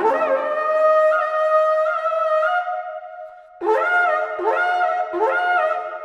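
Replica Deskford carnyx, the Iron Age boar's-head war trumpet, being blown. It holds one long high note with small flicks up in pitch, which fades about three and a half seconds in. Three short notes follow, each sliding up into the pitch.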